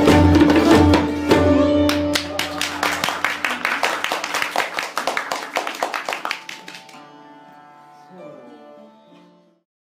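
Hindustani classical ensemble of mohan veena, santoor, pakhawaj and tabla ending a piece in raga Keeravani. Drums and strings play a fast, dense flurry of strokes that thins out about seven seconds in. The strings then ring on with a few sliding notes and fade away.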